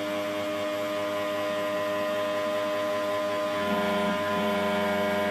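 Home-built CNC router running and cutting, a steady mechanical whine with several constant tones over a rougher cutting noise. The tone shifts slightly about three and a half seconds in.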